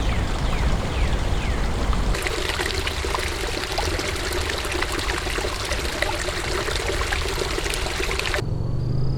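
Running water trickling and pouring, an even rushing sound with many small crackles. The sound changes abruptly about two seconds in and again near the end, where a quieter background with a faint steady drone takes over.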